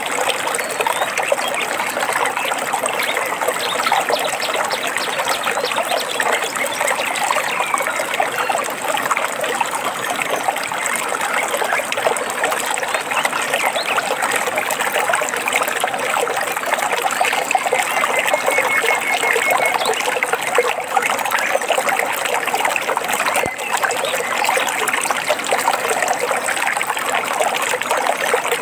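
Shallow stream water trickling and babbling steadily over stones, with a brief bird call about two-thirds of the way in.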